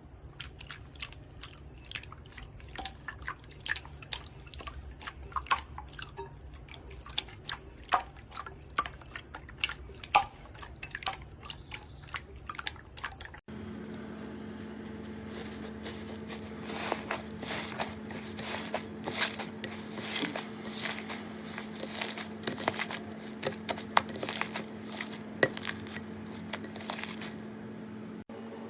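Slime being squeezed and pressed by hand: an irregular run of small wet clicks and pops. About halfway through the sound changes to another clip, with a steady low hum under the clicks.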